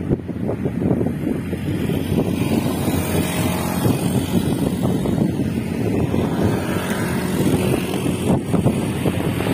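Wind buffeting the microphone over the engine and road noise of a moving vehicle, steady and loud throughout.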